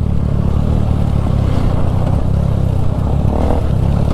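Motorcycle engine running steadily, a constant low drone without any clear revving.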